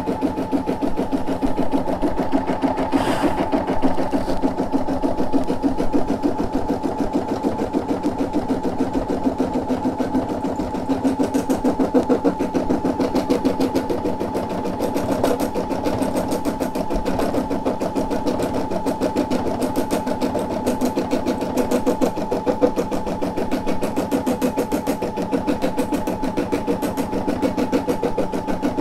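Brother SE600 embroidery machine stitching steadily: a motor hum with the needle's fast, even strokes.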